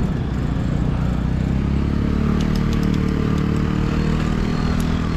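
Wind rushing over the microphone of a moving bicycle, a steady low rumble, with a motor vehicle's engine running close by from about two seconds in.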